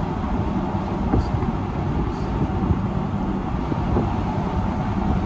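Steady road and engine noise of a moving car, heard from inside the cabin, with a low even drone.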